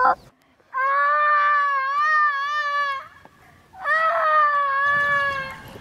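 A child wailing in pain: two long, wavering cries, the first about two seconds long and the second shorter.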